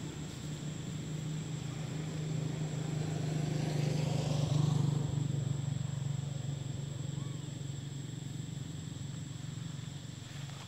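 Motor vehicle engine running steadily, swelling to its loudest about halfway through and then fading as it passes.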